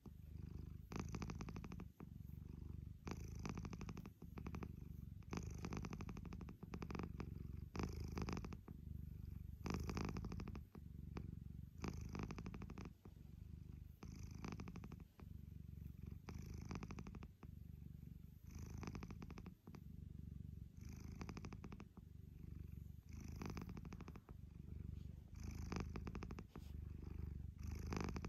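Domestic cat purring loudly and roughly, close up while being stroked on the head. The purr swells and eases with each breath, about once a second, in a rattling rhythm that sounds like a weed eater being cranked.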